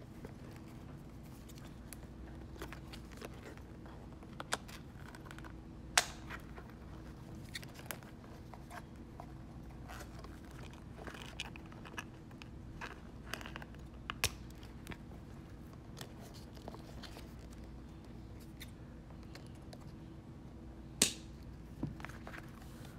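Scissors snipping in scattered short, sharp clicks, cutting the card tag off a plush toy; the loudest snips come about six seconds in and near the end, over a faint steady hum.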